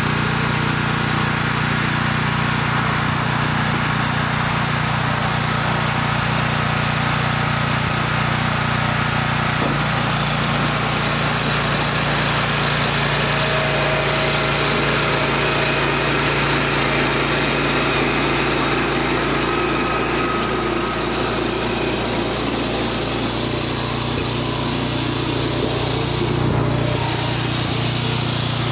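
BCS rear-tine tiller's small gasoline engine running steadily under load while its tines break up lawn soil.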